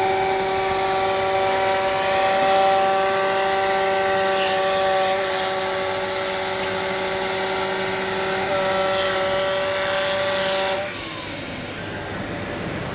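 CNC pattern-cutting machine running, its motors giving a steady whine over a hiss; the whine shifts pitch a couple of times and stops with a short falling whine about eleven seconds in, leaving the hiss.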